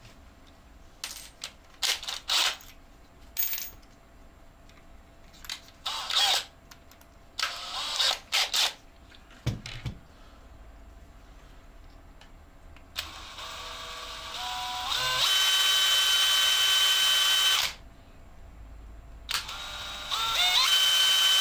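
Cordless drill with a small bit, spun up in steps on the trigger to a steady high whine while it bores a bolt clearance hole through a resin-printed part. It runs about two and a half seconds, stops, then starts again near the end. Before it, short clicks and rattles of parts and tools being handled on the bench.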